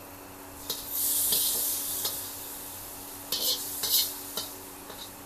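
Metal spatula scraping and clinking against a hot wok as fried squid roe in chilli sauce is pushed out onto a plate, with sizzling: a long hiss about a second in, then several sharp scrapes and clicks.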